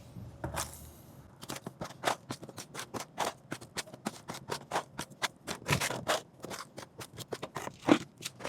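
Quick-setting cement being stirred with a trowel in a mixing pan: a run of short, irregular scrapes and clicks, several a second.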